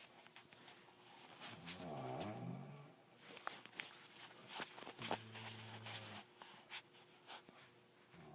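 Snoring: a rasping snore about two seconds in, a steady, buzzing one about five seconds in and another starting near the end, with small clicks in between.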